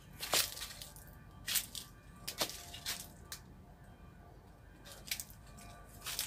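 Dry leaves and twigs crackling and rustling in short, irregular bursts, about half a dozen in all, as someone moves through leaf litter and low branches.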